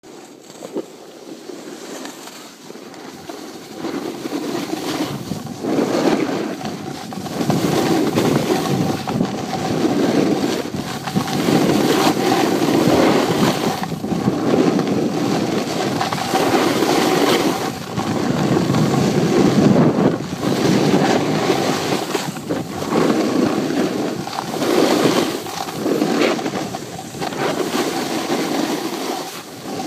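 Wind rushing over a phone's microphone while skiing downhill, mixed with skis sliding and scraping over packed snow. It starts quiet, builds over the first few seconds, then swells and eases every second or two with the turns.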